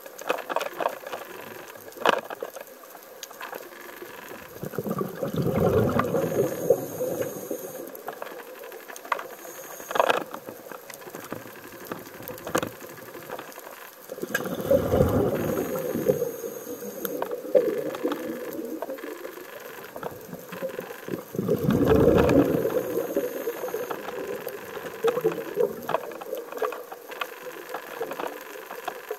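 Scuba diver's regulator exhalations underwater: three bubbling surges, each a couple of seconds long and about eight seconds apart, with scattered sharp clicks in between.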